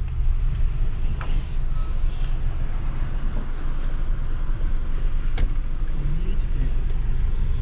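Low, steady rumble of a road vehicle's engine and surroundings at a toll gate, with a single sharp click about five seconds in.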